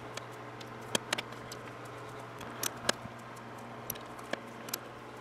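Scattered light clicks and taps from a four-jaw lathe chuck being turned and its jaws adjusted by hand while an aluminum part is dialed in with a dial indicator, over a steady low hum.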